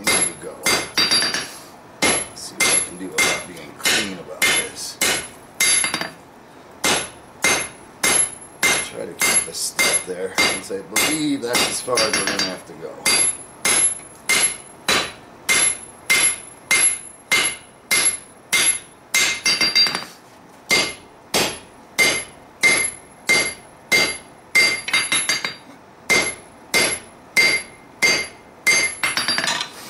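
Hand hammer striking red-hot steel on an anvil, about two blows a second with a bright ring after each, in runs broken by short pauses: drawing out a claymore blade to length.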